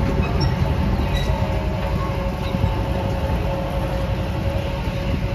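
Zoo miniature train running: a steady low rumble from its engine and running gear, with a faint steady whine above it.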